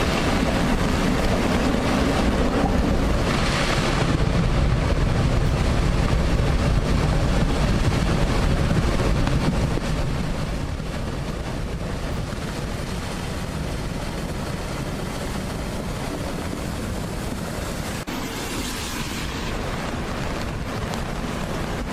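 Avalanche: a continuous low rumble with wind buffeting the microphone, louder for about the first ten seconds, then easing a little.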